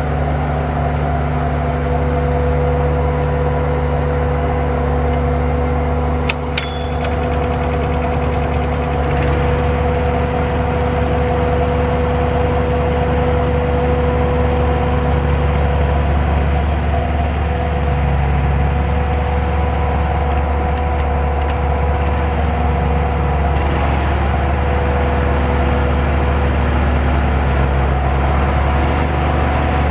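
Small gasoline engine of a portable water pump running at a steady speed, with a brief click about six seconds in.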